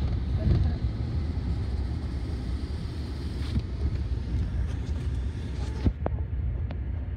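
Steady low road and engine rumble heard inside the cabin of a moving car, with a single sharp click near the end.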